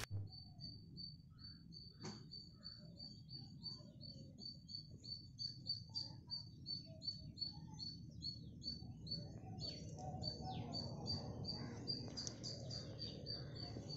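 Faint outdoor birdsong: one bird repeats a short high chirp about three times a second, with other scattered chirps around it.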